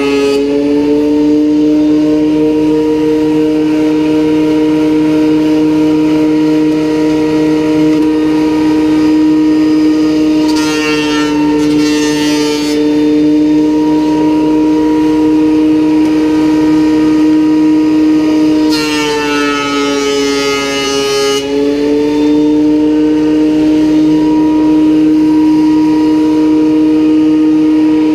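A Ridgid benchtop thickness planer's motor running with a steady high whine. Twice, about ten seconds in and again near nineteen seconds, a wenge board goes through the cutterhead. Each time a harsh cutting noise is added for two to three seconds, and the second time the motor's pitch sags under the load.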